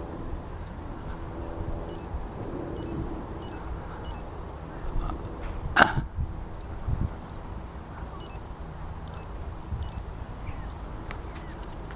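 Handheld compact camera's microphone picking up low wind rumble and handling noise, with one sharp knock about six seconds in and a few faint, very short high peeps now and then.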